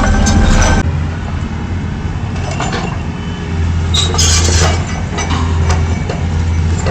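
Large diesel engine of heavy equipment running with a steady low drone, with a few brief clattering noises on top near the start and about four seconds in.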